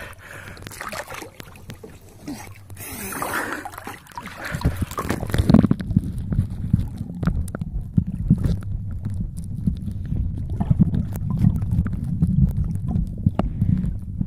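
Water sloshing and splashing at the surface. About five and a half seconds in, the microphone goes under water and the sound turns to a muffled low rumble with many small knocks and gurgles.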